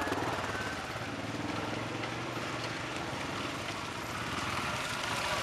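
Quad bike (ATV) engines running at low speed as the machines crawl past one after another on a dirt trail. The sound grows louder near the end as the next quad comes up.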